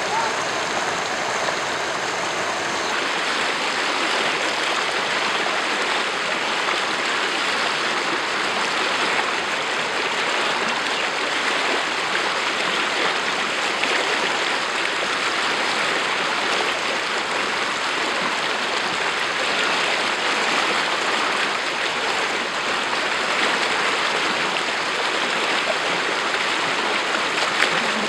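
Muddy floodwater rushing and churning fast over a low ledge and down a flooded channel: a steady, loud rush of water.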